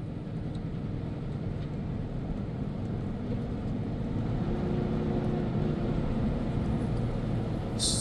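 Truck driving with its windows down: steady engine, tyre and wind noise in the cab, growing slightly louder.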